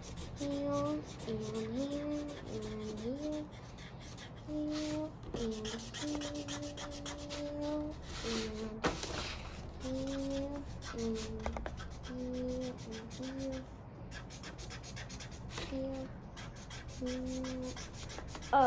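A child humming a wordless tune in long held notes while scrubbing a marker back and forth across paper, the scratchy rub of the tip running under the humming.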